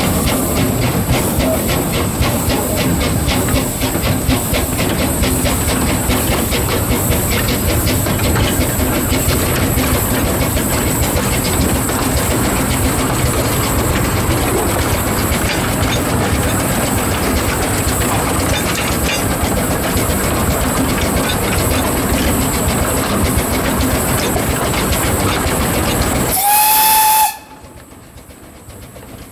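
The 1924 Wee Georgie Wood narrow-gauge steam locomotive running, with a steady rapid chuff of steam and hiss and the clatter of the wheels on the rails. Near the end its steam whistle gives one short blast, and the sound then falls away sharply.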